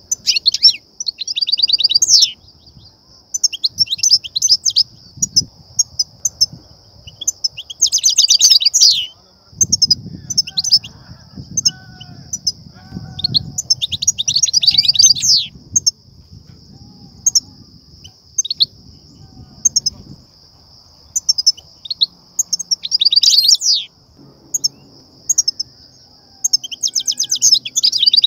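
European goldfinch twittering: repeated bursts of rapid buzzy trills and short high chirps, over a steady high-pitched hiss.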